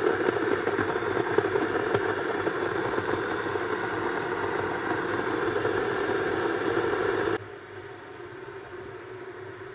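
A steady whirring hum of a machine that starts suddenly, then drops to a quieter, narrower hum about seven seconds in.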